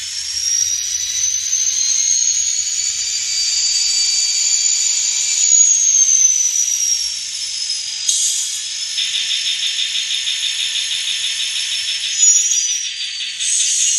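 Onboard sound decoder of an N scale EMD SD40T-2 model locomotive playing diesel locomotive engine sounds through its tiny speaker, thin and high-pitched. A whine rises for the first five seconds or so and then falls away. About nine seconds in, a fast, even repeating pattern joins it.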